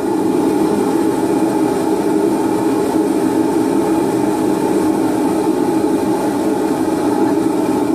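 Homemade three-burner propane forge, its black-pipe burners fed through MIG-tip gas jets, running with all three burners lit: a loud, steady roar.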